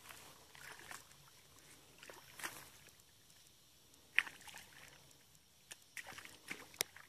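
Shallow muddy water splashing and sloshing as someone wades and works it with a long-handled stick: scattered short splashes, a sharp one about four seconds in and several more close together near the end.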